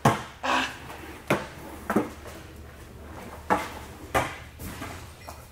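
Skateboard on a smooth concrete floor: about seven sharp clacks of the deck popping and landing, the loudest right at the start, with the wheels rolling in between.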